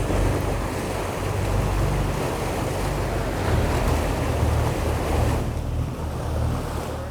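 Fishing boat under way: a low engine drone with water rushing along the hull and wind buffeting the microphone.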